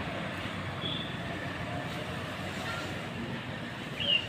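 Heavy diesel truck, the Tata Prima tipper, running with a steady low rumble; a brief high squeal sounds about a second in and a louder one near the end.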